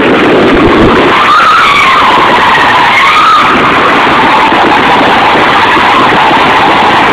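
Car tyres squealing loudly and without a break, a shrill tone that wavers up and down in pitch.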